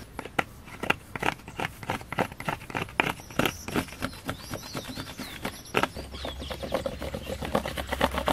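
Back of a knife scraping the spines off a prickly pear (nopal) cactus pad on a wooden board, in quick repeated rasping strokes.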